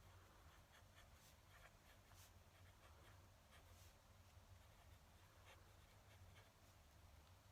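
Fountain pen nib scratching faintly across paper in short strokes, over a low steady hum.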